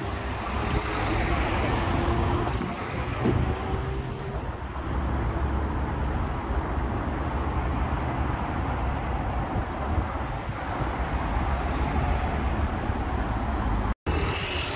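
Road traffic: motor vehicles passing with a steady low rumble of engines and tyres. The sound drops out for a moment near the end.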